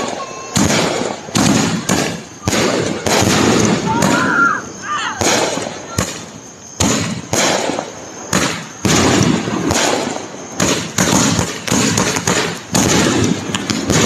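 Fireworks going off in rapid succession: sharp bangs about twice a second, each trailing off in a rumbling echo, with a short whistling glide about four seconds in.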